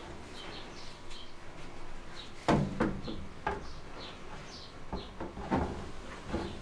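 A metal baking tray knocking and scraping against the rails of a countertop electric oven as it is slid in, a string of clanks with the loudest about two and a half seconds in. Small birds chirp throughout.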